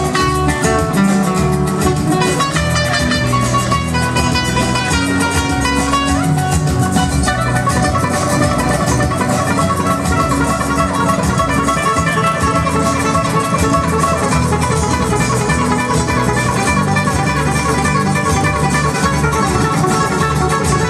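Two amplified acoustic guitars playing an instrumental tune together live, a plucked melody running over low bass notes.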